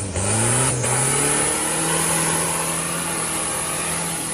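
Off-road vehicle's engine revving up over about a second and a half, then held at steady high revs, with a strong steady hiss alongside.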